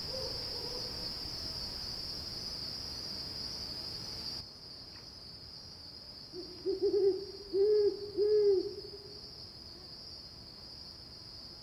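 Crickets trilling steadily at night, and about halfway through a barred owl calls a run of low, arched hoots.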